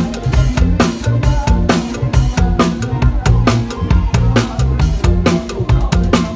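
Loud, upbeat lam ploen band music driven by a drum kit, with a busy run of bass-drum and snare strokes over a steady bass line.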